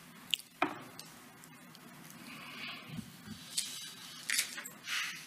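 Quiet room tone broken by a few brief clicks and short rustling noises.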